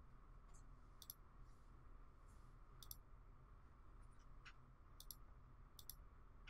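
Faint computer mouse clicks over near-silent room tone: a few quick clicks, several in pairs, about a second in, around three seconds, and twice near the end.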